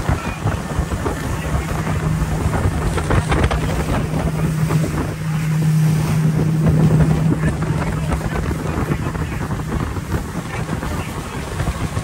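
Small open boat's motor running steadily under way, its low drone swelling for a couple of seconds around the middle, with wind buffeting the microphone and water rushing past the hull.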